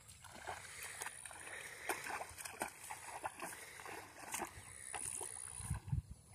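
Feet wading through shallow water, with faint, irregular splashing and sloshing at each step.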